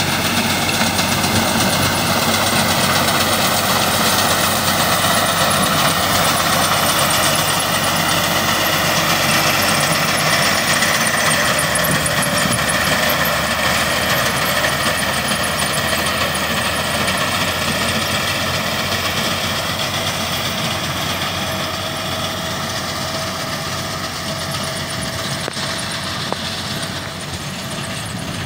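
Massey Ferguson 375 tractor's diesel engine running steadily as it drives a front-mounted reaper through standing wheat. The sound slowly fades as the tractor moves away.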